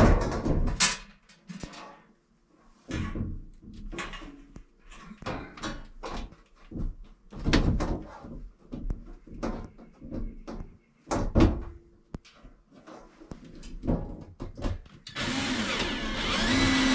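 Irregular knocks and taps as the sheet-metal thimble plate is handled against the wall, then, about two seconds before the end, a cordless drill runs steadily, driving a screw into the plate.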